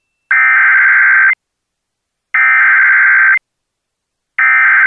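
Emergency Alert System SAME header: three identical bursts of two-tone digital data, each about a second long with a second of silence between, the third still sounding at the end. The bursts carry the coded alert: event type, area and valid time that let receivers trigger on the flood warning.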